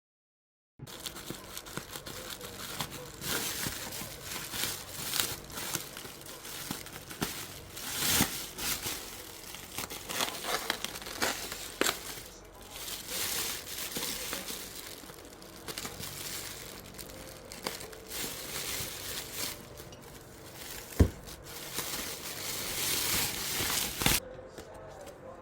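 Crinkly wrapping rustling and crackling as it is handled, with many small clicks and one sharp knock about three-quarters of the way through. It stops abruptly shortly before the end.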